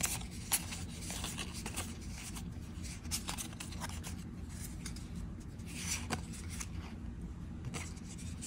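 Trading cards being slid one at a time from the front to the back of a hand-held stack: irregular papery swishes and flicks of card against card. A low steady hum runs underneath.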